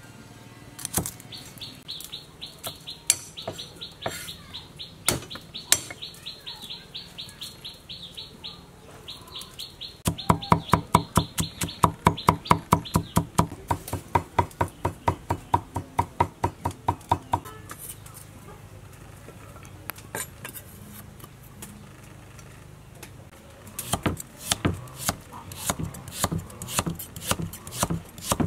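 Kitchen knife chopping on a wooden chopping block: a steady run of sharp knocks, about four a second, for several seconds in the middle, with looser slicing knocks near the end as carrots are cut. Earlier a bird chirps a fast, rapidly repeated high note.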